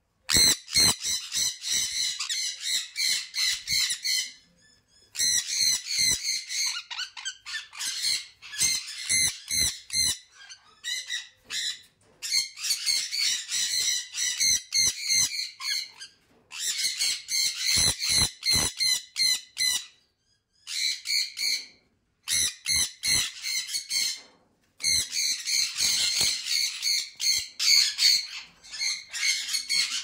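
Sun conures calling in bouts of rapid, short, shrill calls, each bout lasting a few seconds and separated by brief pauses.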